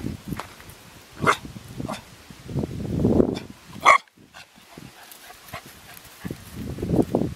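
Labrador-mix puppy giving two short barks, about a second in and again near four seconds, with low rustling noise between them.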